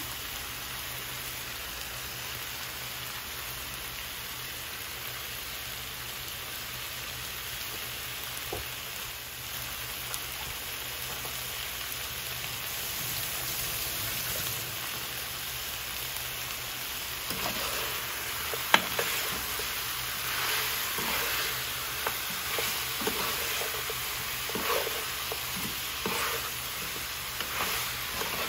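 Chicken, potatoes and tomato paste sizzling steadily in an oiled frying pan. From about two-thirds of the way through, a spoon scrapes and clicks against the pan as the stew is stirred.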